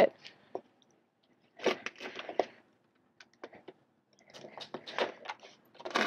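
Crunching and scraping handling noises in two short clusters, about two seconds in and again about five seconds in, with scattered light clicks between.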